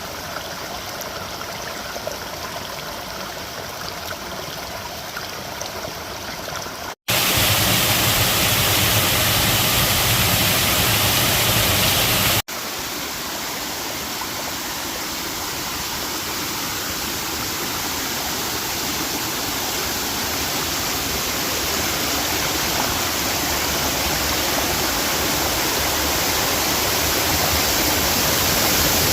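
Waterfall rushing steadily in three clips joined by abrupt cuts. The middle stretch, about 7 to 12 seconds in, is much louder and fuller, and the last stretch grows gradually louder toward the end.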